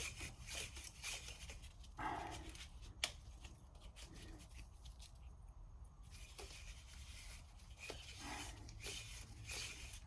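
Faint rustling and crinkling of Blue Monster PTFE thread-seal tape being wrapped onto the threads of a brass pipe nipple. There is a sharp click about three seconds in.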